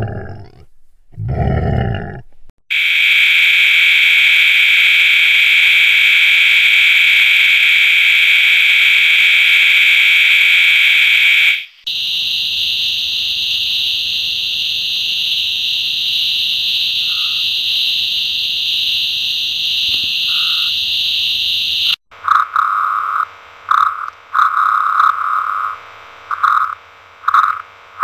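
Tree frogs calling in three stretches. First comes a loud, steady, high trill for about nine seconds. After a short break a second steady high trill runs for about ten seconds. Then come short, lower-pitched calls repeated about once or twice a second.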